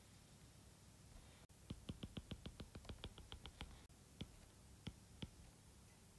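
Faint stylus taps on a drawing tablet: a rapid run of about ten taps a second for about two seconds as a dotted line is dotted in, then a few single taps.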